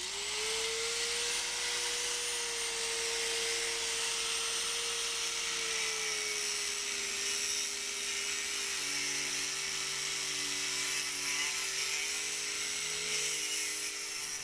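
Angle grinder with an abrasive disc running steadily as it cuts into a potted electronics module, a high motor whine over a gritty hiss. The pitch drops slightly about halfway through.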